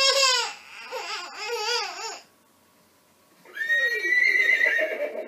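Animatronic toy pony playing a recorded horse whinny: a wavering, trembling neigh lasting about two seconds. About a second later comes another high, drawn-out call.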